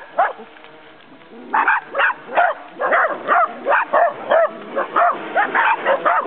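Dachshunds barking in a quick, excited run at a radio-controlled boat, about three barks a second, starting about a second and a half in.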